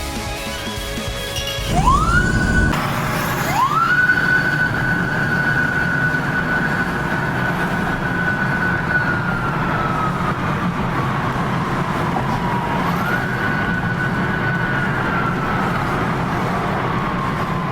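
Japanese police siren winding up to a long high tone, sliding slowly down, then rising and falling once more: a police vehicle pursuing to stop a speeding vehicle. Under it runs a steady rumble of road traffic.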